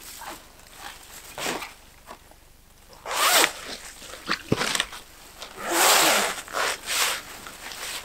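The zip of a camouflaged tent-style photo hide being pulled open in several short strokes, the loudest a little after three seconds and about six seconds in.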